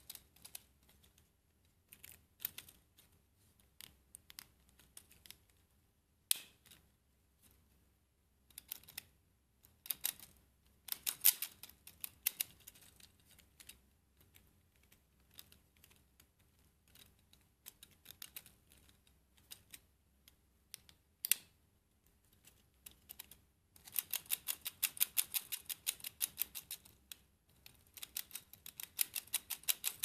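Small clicks from a 3D-printed plastic clockwork heart toy as its gears are turned by hand, irregular at first. From about 24 s in its Ulysse-type escapement ticks rapidly and evenly, with a short pause near 27 s, as the wound mechanism runs.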